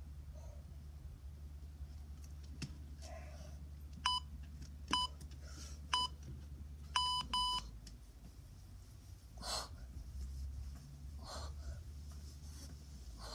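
Electronic timer beeping: three short beeps about a second apart, then two longer beeps in quick succession.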